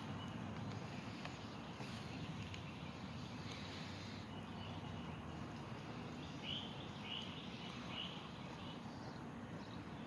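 Steady outdoor background noise with three short bird chirps in quick succession in the second half.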